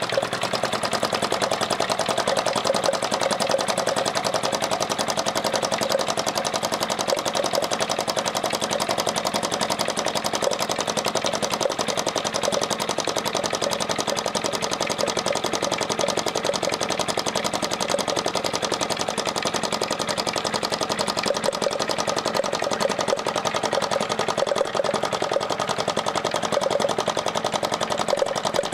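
Self-built model hot-air engine (flame eater) running fast with a rapid, even clatter, driving a belt transmission and line shaft.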